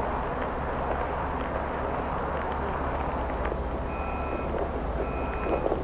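Steady low rumble of idling vehicles in street traffic. About four seconds in, electronic warning beeps start: half-second beeps about a second apart, twice.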